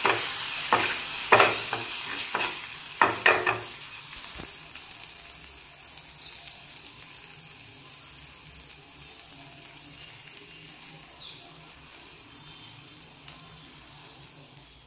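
A flat spatula scraping and stirring through spice powders, tomato and green chilli frying in oil in a kadai, with a steady sizzle. Several sharp scraping strokes come in the first three seconds or so, then mostly a quieter sizzle that fades toward the end.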